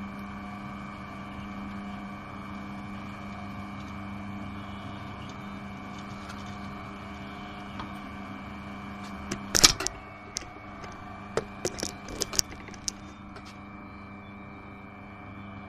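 Peugeot Outillage XXL pillar drill's electric motor running with a steady hum. About nine and a half seconds in, the bit bores into a block of wood, loud for about half a second, followed by a string of sharp clicks as it cuts.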